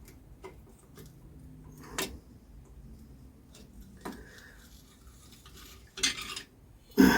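Metal engine parts of a BSA Bantam B175 being handled during a strip-down: light clinks and knocks, a sharp clink about two seconds in, a short scrape around six seconds, and a loud clunk near the end.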